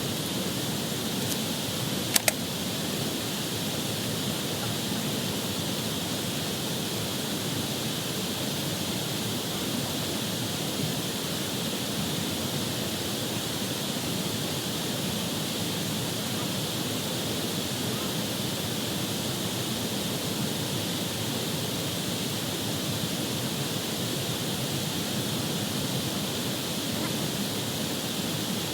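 Steady outdoor noise with an even high hiss throughout, and two sharp clicks about two seconds in.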